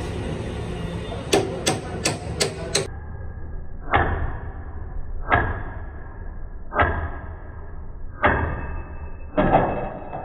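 A quick run of five sharp clicks, then five separate dull knocks about a second and a half apart, each dying away over about a second.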